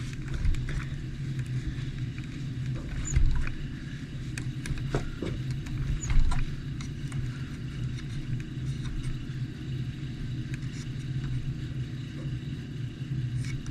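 Scattered light clicks and taps of small RC truck shock parts being handled and fitted, over a steady low hum.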